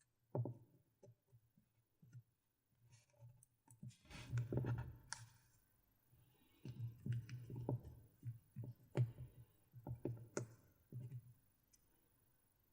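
Close-miked handling of a GoPro Hero 4 Silver camera and its packaging: scattered light clicks, taps and knocks, with a denser patch of handling noise about four seconds in.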